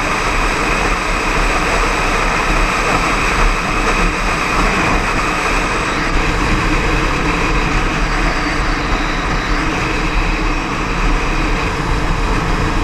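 Motorcycle riding at highway speed: steady wind rush over the microphone mixed with the engine running evenly.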